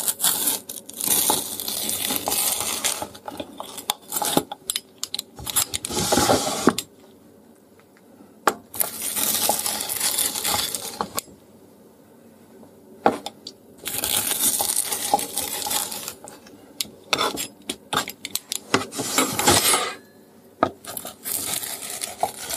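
Wheel pizza cutter rolling through a crisp pan-fried quesadilla and pressing onto a plastic cutting board: about six strokes of crunching and scraping, each a second or two long, with short pauses between them.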